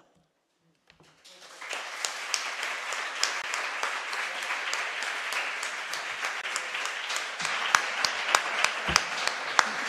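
Audience applauding. The applause starts about a second in and swells to a steady level, and near the end a few sharp claps from someone close by stand out.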